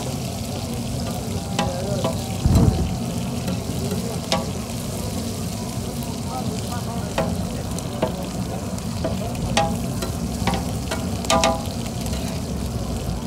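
Cubes of bull liver sizzling steadily on a large flat griddle, with sharp clicks and scrapes of a metal spatula on the plate every second or so. One louder low thud about two and a half seconds in.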